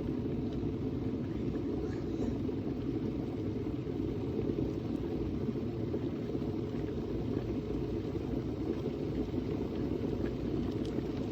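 Hamilton Beach 40880C stainless steel electric kettle heating water: a steady low rumble as the water comes up toward the boil.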